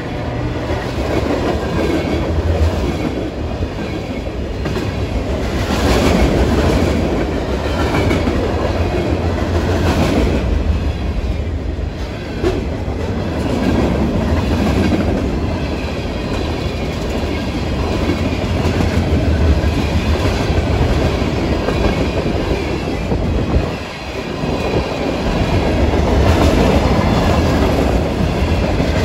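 Norfolk Southern freight train rolling past on jointed track, the wheels clicking over the rail joints car after car with a steady low rumble.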